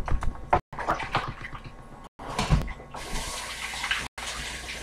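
Water running from a tap as hands are washed under it: a steady hiss through the second half, with a few knocks before it.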